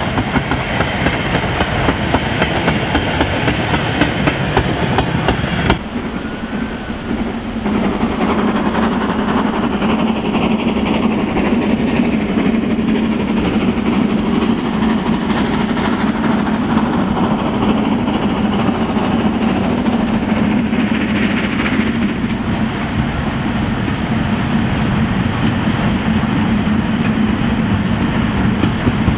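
LNER K4 three-cylinder steam locomotive with a train of goods wagons: the wagons rumble and clack past over the rail joints, then, after a break about six seconds in, the locomotive is heard approaching under steam with its train rolling behind.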